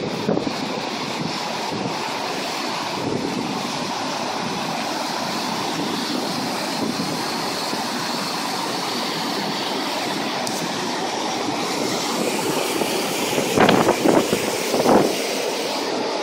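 High floodwater rushing steadily, with a few gusts of wind buffeting the microphone near the end.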